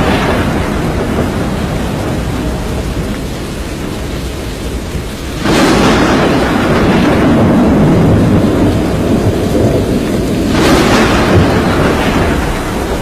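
Thunderstorm: steady heavy rain with rumbling thunder. A fresh peal of thunder breaks suddenly about five seconds in and another about eleven seconds in, each rumbling on for several seconds.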